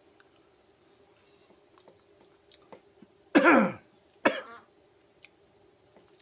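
A man clears his throat about three seconds in: one short rough burst that drops in pitch, with a sharp second catch just after it. Faint small clicks come from eating rice by hand.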